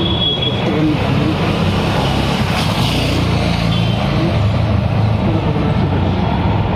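A steady, loud low engine-like rumble runs throughout, like a motor vehicle running nearby, with faint voices now and then.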